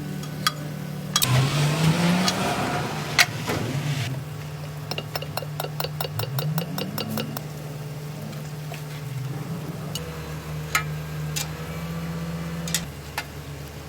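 A wheel loader's diesel engine running steadily at idle, revving up briefly twice, with a quick run of metallic clicks and scattered metal knocks over it.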